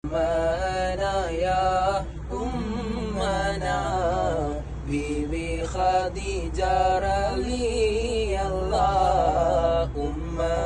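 Men's voices chanting a melodic Islamic devotional recitation together, long held notes with wavering, ornamented pitch and short pauses for breath.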